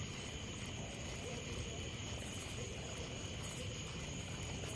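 Steady high-pitched insect chorus, two unbroken shrill tones, over a low rumble.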